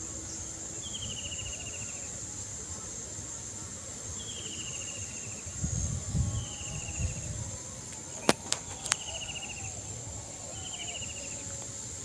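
A steady, high-pitched drone of insects such as crickets, with a short, falling, pulsed call repeating every couple of seconds. Three sharp clicks come about eight seconds in, and a few low thumps about halfway.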